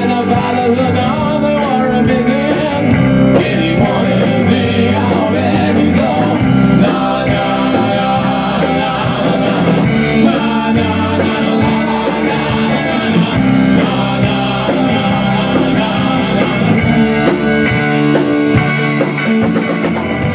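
A rock band playing live: electric guitar, electric bass and a Tama drum kit, with a steady beat and a dense, loud band sound.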